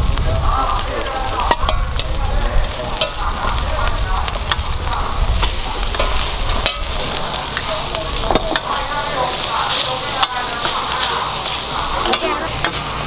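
Metal spatula scraping and clinking against a large metal wok as fried rice is scooped out, over a steady frying sizzle. There are sharp clinks every second or so.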